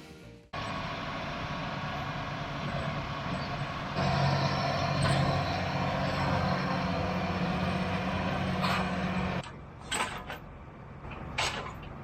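Tractor engine running steadily, getting louder about four seconds in and cutting off sharply near the end, followed by a few light clicks.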